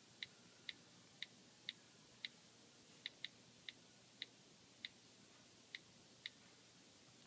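iPhone on-screen keyboard key clicks as a password is typed: about a dozen short, crisp ticks, roughly two a second at an uneven pace, one per key tap.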